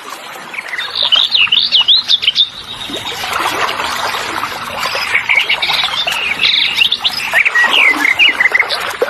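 Birds chirping and singing in quick rising and falling notes, in two busy spells, over a steady background hiss.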